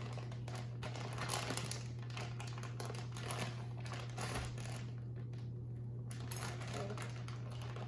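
Plastic packaging of a bag of kinetic sand crinkling and rustling as it is handled and poked at, over a steady low hum.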